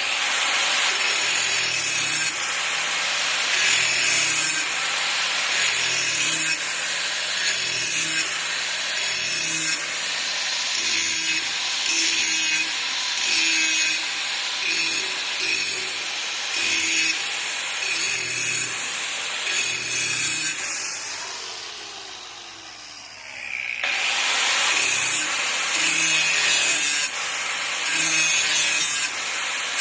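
Angle grinder grinding the cutting edge of a steel lawnmower blade in repeated passes, the grinding swelling every couple of seconds. About two-thirds through it is switched off and winds down in a falling whine, then starts up and grinds again.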